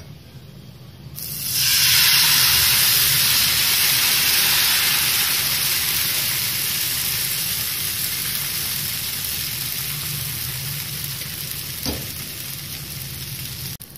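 Thin rava (semolina) dosa batter sizzling as it is poured onto a hot pan: a loud hiss that starts about a second in and slowly fades as the batter cooks into a lacy crepe.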